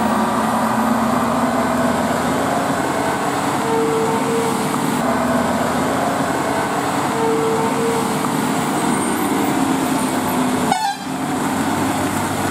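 Loaded Tata tipper lorry's diesel engine running under load as it rounds a hill bend and passes close by, with two short horn toots about four and seven seconds in. The sound breaks off briefly about eleven seconds in.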